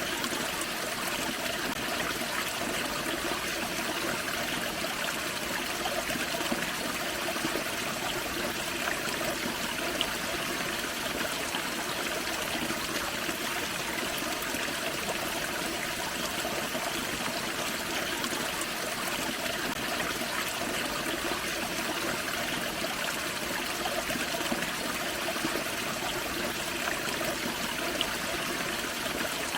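Forest creek running over a small waterfall: a steady, even rush and trickle of water.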